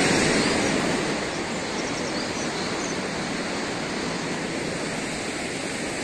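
Steady rush of a fast mountain river, the Alaknanda, flowing beneath the footbridge.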